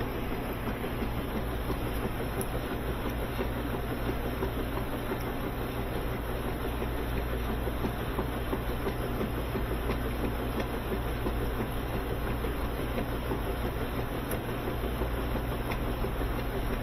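Top-load washing machine running with its outer cabinet removed: a steady motor and drive hum under an even mechanical rush, unchanging throughout.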